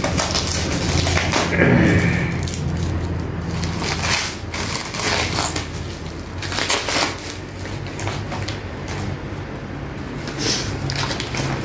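Clear plastic wrapping crinkling and tearing as it is pulled by hand off a paper-wrapped parcel, in irregular rustles and crackles.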